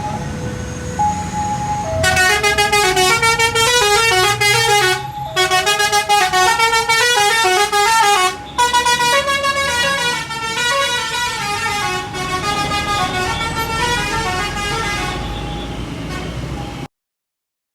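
A bus's basuri musical horn playing a fast tune of quickly changing horn notes over the low rumble of the bus. Slower held notes come first, the quick melody starts about two seconds in, and the sound cuts off suddenly near the end.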